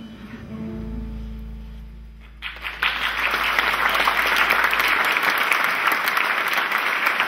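The song's last held chord from the accompaniment fades out, then audience applause breaks out about two and a half seconds in and carries on loudly.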